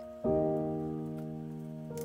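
Background piano music: a chord is struck about a quarter second in and rings on, slowly fading.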